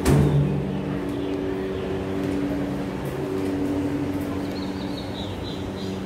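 A sharp knock at the start, over a steady machine hum that holds one pitch throughout, with a few short high chirps near the end.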